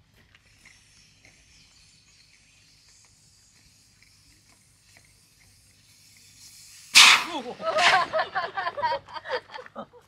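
An inflatable air tent's large valve is opened and the pressurised air bursts out with a sudden loud rush about seven seconds in, deflating the tent. Before it a faint hiss; after it voices exclaim.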